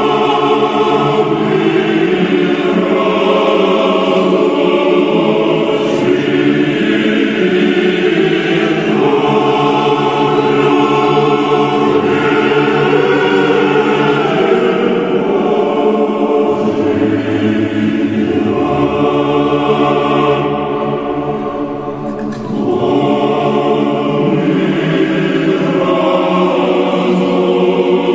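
A choir singing Orthodox liturgical chant in long, sustained chords that shift every few seconds. Deep bass notes come in for a few seconds past the middle, and the singing briefly softens just after.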